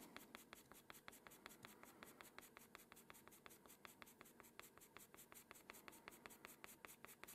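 Faint scratching of a black pastel pencil on paper, drawn in quick, even strokes at about seven a second as short fur hairs are laid down.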